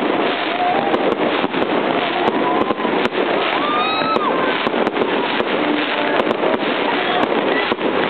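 Fireworks going off in a continuous barrage, many sharp bangs and cracks over constant crackling.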